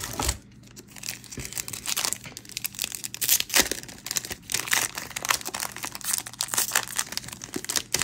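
Foil wrapper of a Magic: The Gathering Beyond booster pack being torn open and crinkled, a dense run of irregular crackles.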